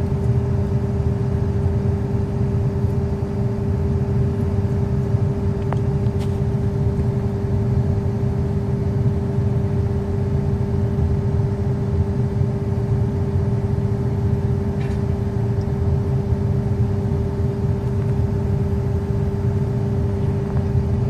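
Excavator's diesel engine running steadily, a low rumble with a steady whine over it.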